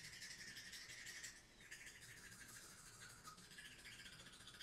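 Faint, quick scratchy scrubbing of a child's manual toothbrush on a toddler's teeth, with a short pause about a second and a half in.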